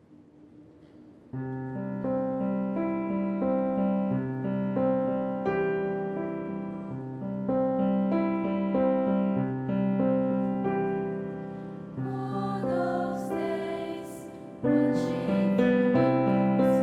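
Slow piano-like keyboard chords, which come in suddenly about a second in and fade a little after each change, with a louder, brighter passage near the end.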